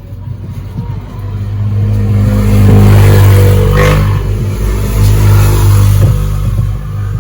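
A motor vehicle's engine running close by, growing louder over about two seconds, holding for a few seconds, then fading near the end.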